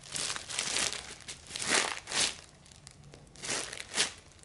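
Clear plastic packaging bag crinkling in several short bursts as a foam squishy toy is squeezed inside it.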